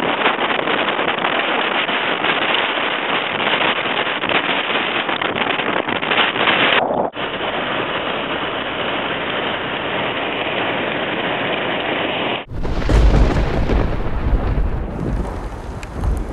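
Storm noise: a steady hiss of heavy rain and wind, broken by two abrupt cuts. After about twelve seconds, strong low wind buffeting on the microphone.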